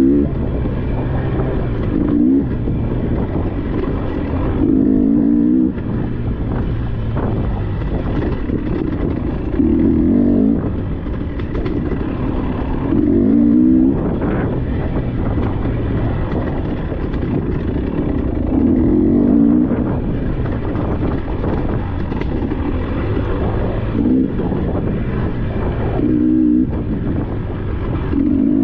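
Dirt bike engine on the trail, the throttle opened in short bursts every few seconds, its pitch rising with each burst before dropping back.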